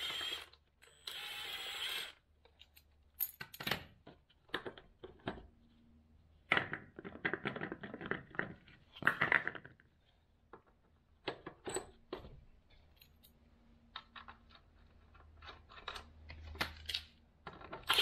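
Metal clinks and clatter of track bogie wheels, nuts and washers being handled, with a cordless impact wrench running for about a second near the start.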